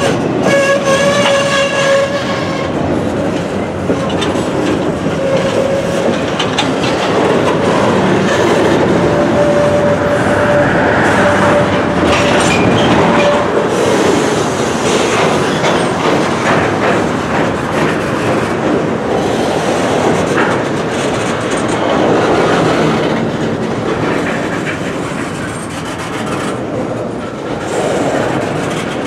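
Double-stack intermodal container cars of a long freight train rolling past close by: a steady noise of steel wheels on rail with repeated clicks over the rail joints. A held squealing tone from the wheels sounds at the start and again from about nine to fourteen seconds in.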